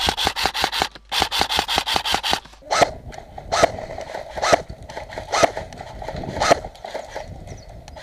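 Airsoft rifle firing two rapid strings of shots in the first two and a half seconds, then single shots about once a second.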